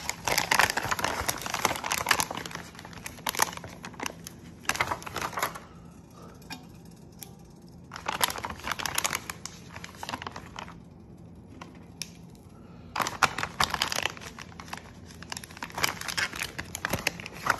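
Plastic meat package crinkling and rustling as it is handled, in three spells with short quiet gaps between them.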